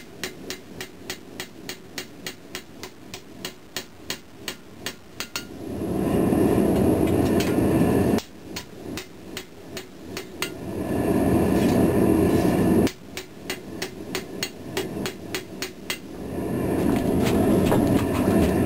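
Ball-peen hammer striking a hot steel knife blade on an anvil, about three blows a second, as the blade's bevels are forged. Three times a loud steady rushing noise swells up under the blows; the first two stop abruptly.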